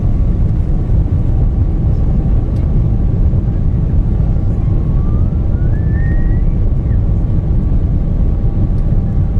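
Boeing 777 twin jet engines heard from inside the cabin, spooling up for takeoff: a loud, steady deep rumble, with a whine that climbs in pitch about halfway through.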